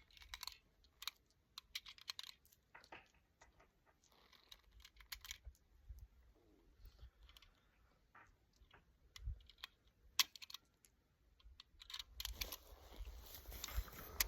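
Scattered light clicks and rustling at irregular intervals, like small objects being handled; no shots are fired.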